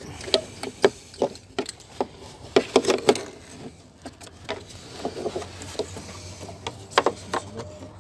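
Irregular clicks and knocks of a small hand tool working on plastic fittings around a car's radiator, with a quick cluster about two and a half to three seconds in and a single sharp click about seven seconds in.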